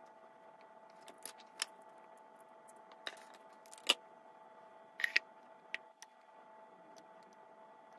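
Scattered light clicks and taps as a clear blender cup is filled with tangerine segments and its lid is fitted and screwed on, about seven in all, over a faint steady hum.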